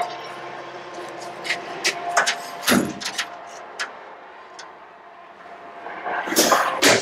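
Clicks and knocks of the metal compartment doors and latches on a utility truck's service body being opened and handled, the loudest knock a little under three seconds in, with a swish and another knock near the end.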